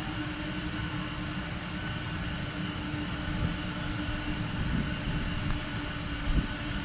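Boeing 747 jet engines running steadily: a low rumble with several steady whining tones over it. A brief thump comes near the end.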